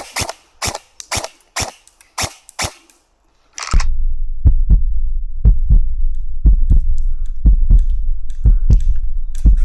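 Airsoft rifle firing single shots, six or seven sharp cracks about two a second. About four seconds in, a loud low rumble sets in, and further shots crack roughly once a second over it.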